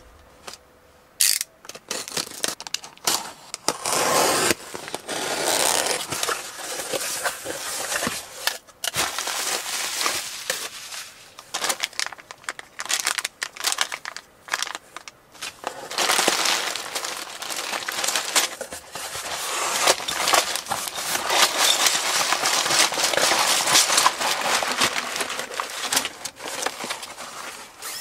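Hands opening a taped cardboard box and handling its contents: cardboard flaps and plastic bags of building bricks crinkling and rustling, with the loose bricks clicking and rattling inside the bags as they are lifted out and spilled onto a table.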